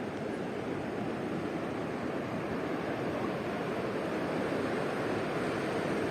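Steady rushing noise with no rhythm or distinct events, growing slightly louder.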